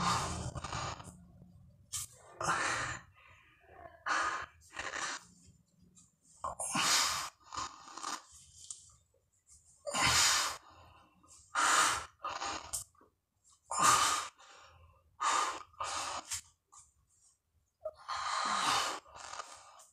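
A man breathing hard and heavily while doing push-ups, forceful breaths every second or two, about 150 reps into a 200-rep set and clearly straining.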